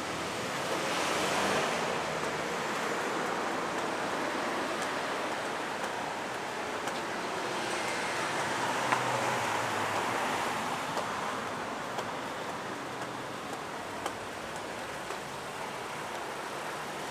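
Outdoor street ambience: a steady hiss that swells twice, once near the start and again about halfway through, with a few faint scattered ticks.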